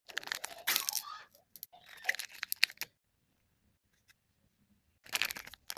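Paper or plastic packaging being handled, crinkling and tearing in two bursts of about a second each, then again near the end.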